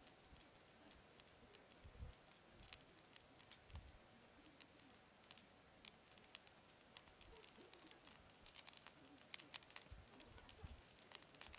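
Faint, irregular crackling and ticking from a dried squid roasting on a wire grill over a glowing coal-briquette (yeontan) fire, with a few soft low bumps.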